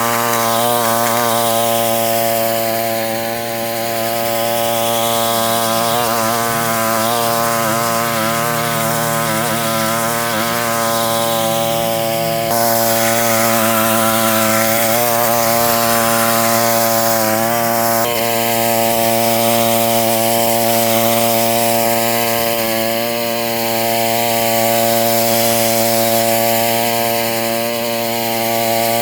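Westermann petrol-engined moss brush running at a steady speed, its rotating wire brush scraping moss off the car park surface. The sound changes abruptly twice, about 12 and 18 seconds in.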